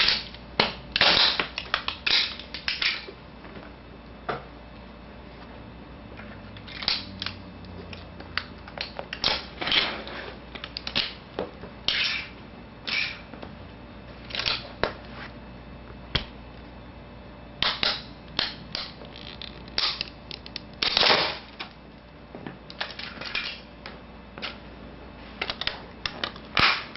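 A small toy train car being crushed and ground under shoes, its body cracking and snapping in clusters of sharp cracks with pauses between.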